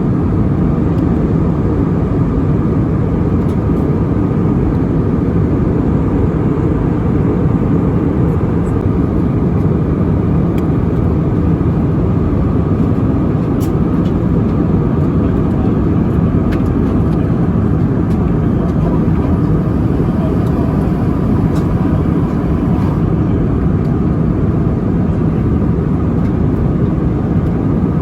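Airliner cabin noise: a steady, loud rumble of jet engines and airflow around the passenger jet, holding even with no rise or fall.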